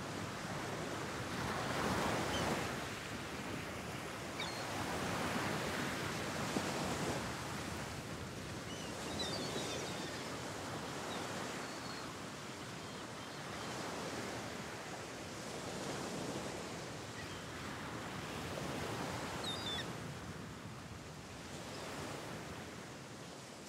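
Sea surf washing against a rocky shore, swelling and easing every few seconds, with wind, and a few short faint high chirps. It fades out at the end.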